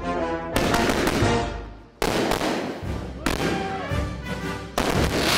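Background music, broken by four sudden loud fireworks bangs, each one fading away.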